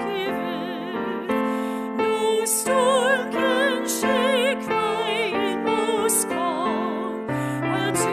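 Singing with wide vibrato over sustained piano chords, a sung part of the prayer service.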